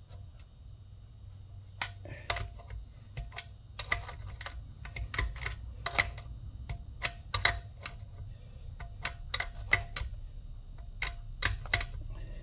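Irregular light clicks and knocks, some in quick pairs, as parts are handled and fitted together by hand, over a low steady hum.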